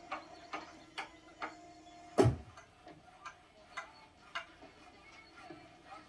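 Hammers knocking irregularly on a building site, roughly two knocks a second, with one much louder, deeper thud about two seconds in.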